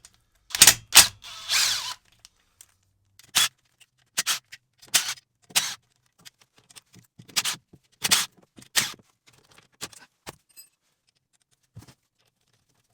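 Screws being undone from a 1979 Suzuki RM80's clutch cover. There are about a dozen short, sharp tool clicks and metal rattles, with a denser scraping cluster in the first two seconds and then single clicks every half second to a second.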